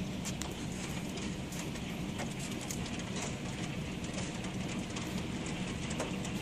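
Heavy hail falling: a steady rush of hailstones striking the ground and surfaces, with scattered sharper clicks of individual stones.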